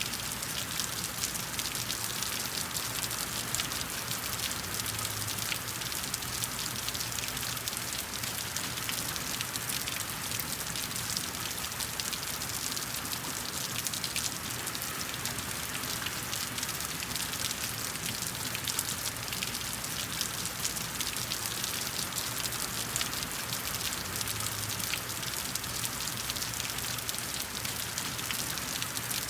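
Steady rain falling on concrete, a dense, even hiss of many small drop patters with no let-up.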